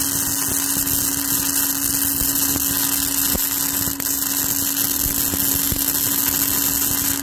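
Flux-core welding arc with 5/64-inch Lincoln NR-211 wire crackling and hissing steadily over a constant hum, stopping abruptly at the very end.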